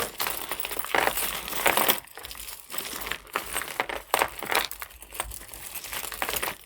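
Costume jewelry pieces clinking together and a bag crinkling as they are rummaged through and handled, in irregular small clicks and rustles.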